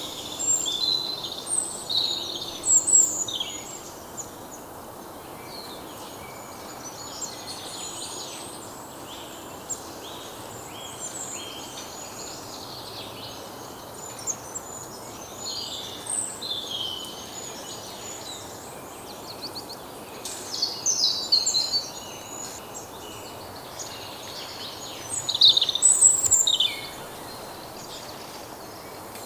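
Several small birds chirping and twittering in short, quick calls over a steady background hiss. The calls come in louder clusters at the start, about two-thirds of the way in, and again near the end.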